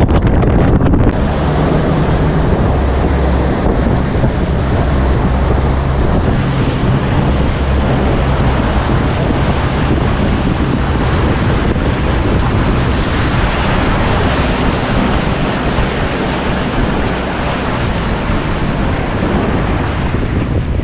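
Bass boat running fast across the water: wind rushing over the microphone and water hissing past the hull, with the outboard motor's low drone underneath.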